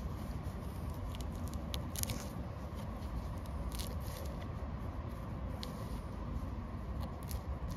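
Fresh mint leaves being sliced with a sharp flint flake on a tabletop: soft cutting and crushing of leaves with a few faint ticks of the stone. A steady low rumble of wind on the microphone runs underneath.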